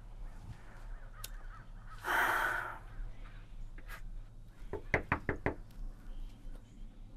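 Four quick knocks on a wooden front door, about five seconds in. A single harsh, noisy burst lasting about half a second comes earlier, about two seconds in.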